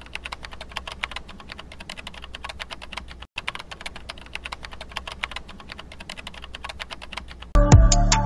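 Fast, even computer-keyboard typing clicks, a typing sound effect under the logo text reveal, with a brief break about three seconds in. Near the end, loud electronic music with a heavy beat cuts in.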